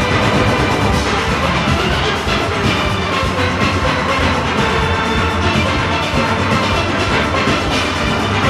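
A full steel orchestra playing: many steelpans at once, from high tenor pans down to the big bass pans, with drums and percussion keeping the beat underneath. The music is loud, dense and unbroken.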